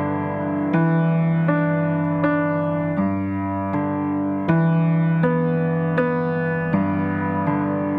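Background piano music: a keyboard playing struck chords at an even, unhurried pace, a new chord about every three-quarters of a second.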